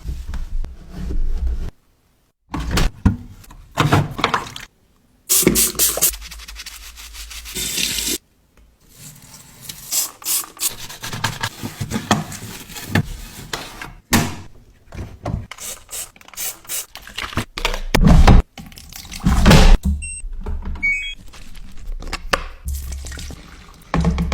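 Washing-machine cleaning: irregular rubbing and scrubbing strokes mixed with water pouring and dripping, in short clips that cut off abruptly a few times.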